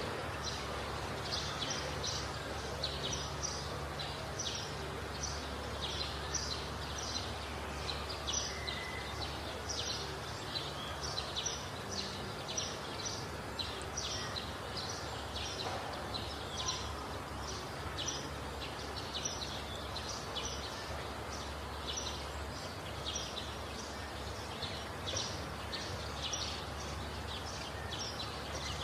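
Birds chirping repeatedly in short, high notes, several a second, over a low steady hum.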